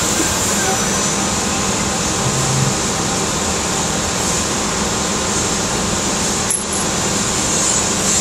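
Steady hiss and hum of a 1984 Okuma CNC lathe standing with its spindle stopped while a part is loaded into the chuck, with a short drop in level about six and a half seconds in.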